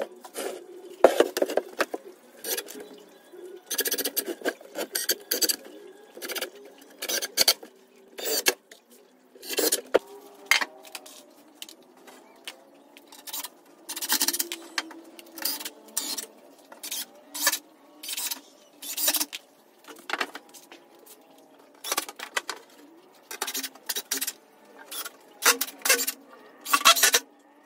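Irregular sharp knocks and clatter of plywood panels and tools being handled during cabinet frame assembly.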